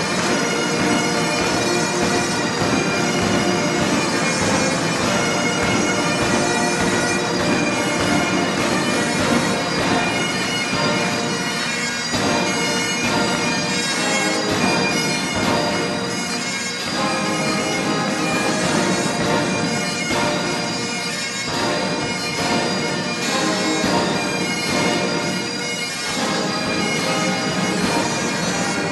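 Massed military bands with pipes and drums playing a march, the bagpipes leading with a continuous sound.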